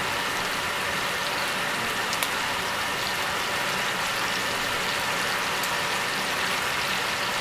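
Diced chicken and bacon sizzling in hot fat in a stainless steel pot: a steady frying hiss with a few faint pops.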